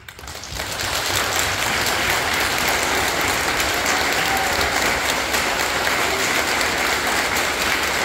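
Audience applauding, building up over the first second and then holding steady.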